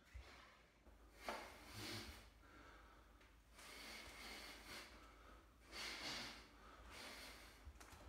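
A man breathing hard while throwing strikes: several forceful exhales, each lasting about half a second to a second, the first starting sharply about a second in.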